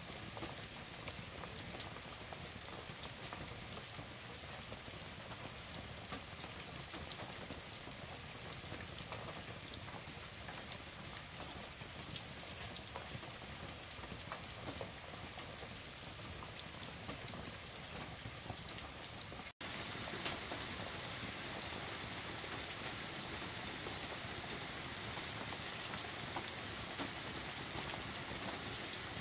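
Heavy rain drumming steadily on a camper trailer's roof, heard from inside as a dense patter of countless drops. It cuts out for an instant about two-thirds of the way through, then carries on slightly louder.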